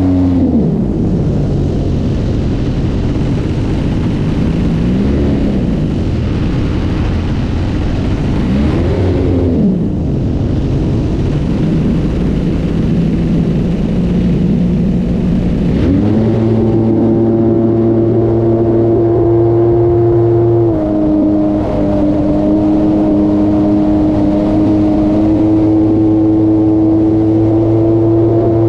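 Hangar 9 Timber 110 radio-controlled model plane's motor and propeller, heard from a camera on the plane. Its pitch rises and falls several times with throttle changes, runs lower for a few seconds, then about sixteen seconds in steps up to a louder, steady high-throttle pitch.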